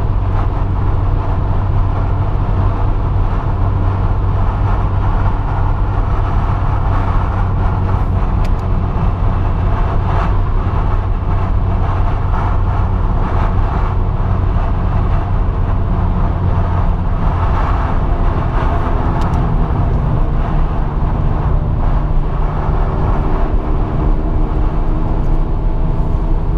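A car running at road speed, heard from inside the cabin: a steady low engine hum mixed with tyre and road noise. The engine's pitch shifts a little in the second half.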